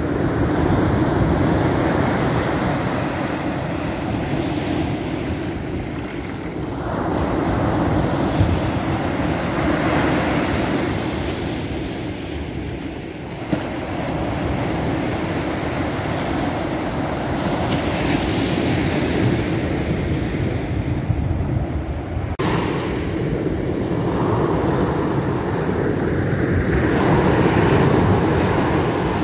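Baltic Sea surf breaking on the shore: a steady rush of waves that swells and eases every several seconds, with wind buffeting the microphone.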